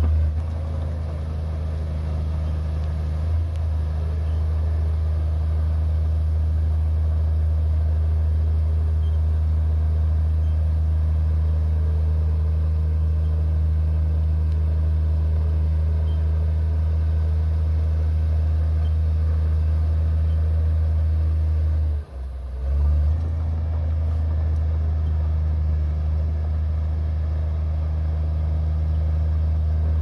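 Komatsu D58P crawler bulldozer's diesel engine running steadily under load as the dozer pushes soil with its blade, a deep, even hum with one brief break about two-thirds of the way through.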